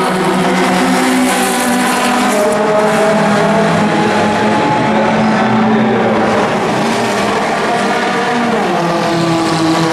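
Racing car engines running at speed, several engine notes overlapping and holding steady, with a shift in pitch a little before the end.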